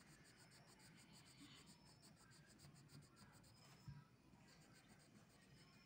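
Faint scratching of a yellow colouring pencil shading back and forth on paper, with one soft knock about four seconds in.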